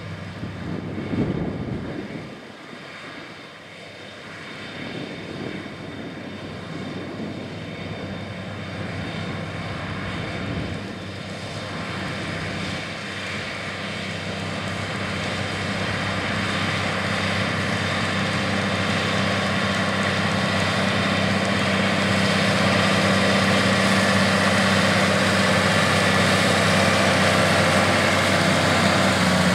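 AGCO White 145 tractor's diesel engine running steadily under load while pulling a corn planter, growing gradually louder as it comes closer.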